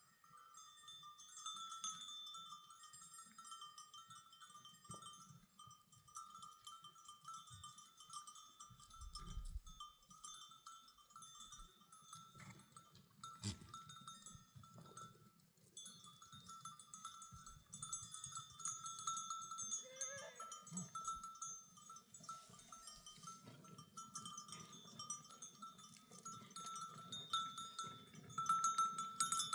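Livestock bells on a grazing flock of goats and sheep, clinking and ringing continuously, with a single bleat about 20 seconds in.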